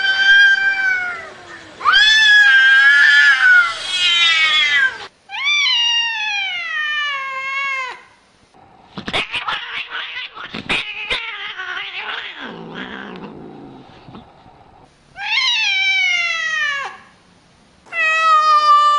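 Cats yowling: long, wavering, drawn-out caterwauls, with two cats squaring off. Several calls slide downward in pitch. In the middle there is a rougher, noisier stretch with a few sharp clicks, and near the end a long, steady meow.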